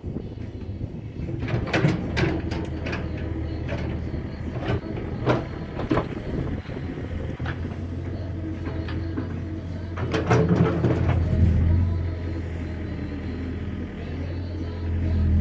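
Sawmill engine running steadily with a low hum, with bursts of knocking and clatter about two seconds in and again about ten seconds in.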